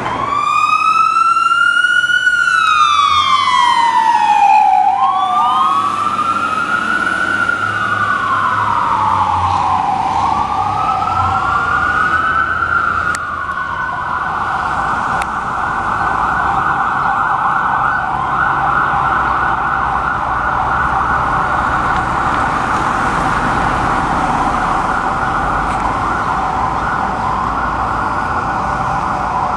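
Fire truck siren sounding on an emergency run: a slow wail rising and falling several times, with overlapping sweeps, then about halfway through it switches to a fast yelp that carries on.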